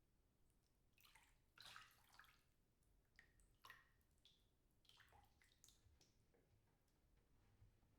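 Faint, irregular splashing and dripping of water as birds bathe in a birdbath, a few short splashes in quick succession.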